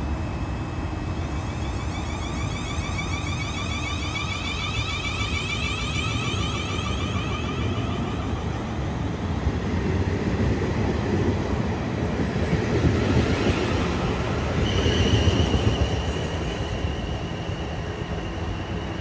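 Class 450 Siemens Desiro electric multiple unit pulling away from the platform. Its traction equipment whines in a series of rising tones as it gathers speed, over the rumble of the wheels on the rails. About three-quarters of the way through, a steady high whine sets in as the train recedes.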